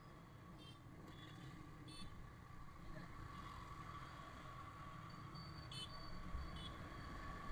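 Muffled low rumble of a Yamaha R15 V3's 155 cc single-cylinder engine riding slowly through city traffic, gradually growing louder as the bike picks up speed. A few short high beeps sound over it.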